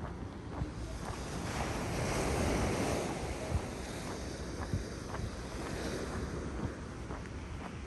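Sea waves washing onto a pebble beach, the surf swelling to a peak about two to three seconds in, with wind rumbling on the microphone.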